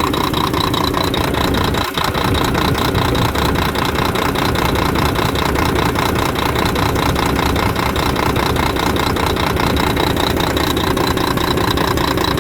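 Volvo FH12 truck's six-cylinder diesel idling roughly, missing on one cylinder. Diagnostics blame the third injector, which reports no response from its mechanical part.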